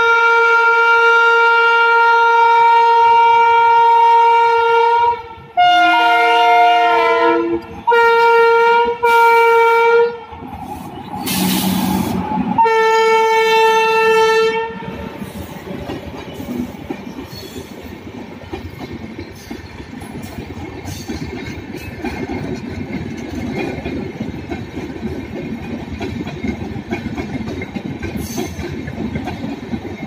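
Electric locomotive horn of an Indian Railways express: one long blast of about five seconds, three shorter blasts, a brief rush of noise as the locomotive passes, then one more blast. After that, LHB passenger coaches roll past with a steady rumble and wheels clicking over the rail joints.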